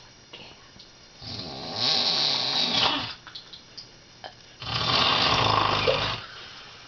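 A woman in her fifties snoring very loudly in her sleep: two long snores, the first about a second in and the second about four and a half seconds in, with quieter breathing between them.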